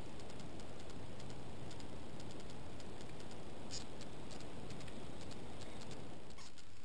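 Steady hiss of a trail camera's microphone with faint scattered ticks and one sharper click about four seconds in; the low part of the hiss drops away near the end as a new clip starts.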